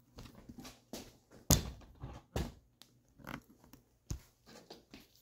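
Irregular knocks and clatter of tools and metal pieces being handled on a workbench, the loudest a sharp knock about a second and a half in.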